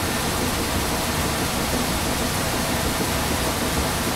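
Steady rushing hiss of central air conditioning running, with the thermostat calling for cooling.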